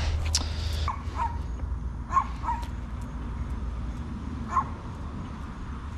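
About five short, high animal calls, spaced irregularly, over a low steady rumble, with a brief rustle in the first second.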